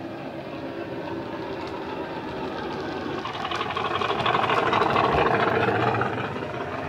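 Sound-fitted model Class 50 diesel locomotive: its DCC sound decoder plays the diesel engine through an EM2 speaker as it runs past. The sound grows to its loudest about four to six seconds in, then fades, with faint clicking from the wheels on the track.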